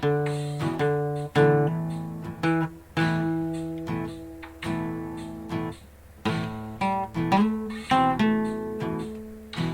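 Acoustic guitar playing a blues-rock piece: chords struck and left to ring for about a second each, with short runs of quick strums between them.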